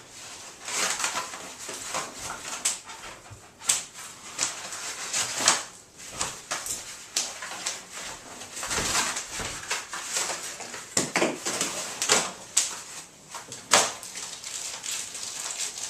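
Bubble wrap and plastic packaging being handled, with rustling and crinkling and many sharp, irregular pops and snaps.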